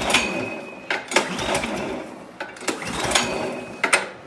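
Briggs & Stratton 208cc single-cylinder engine of a two-stage snowblower running with the choke off, its sound swelling and fading about every second and a half.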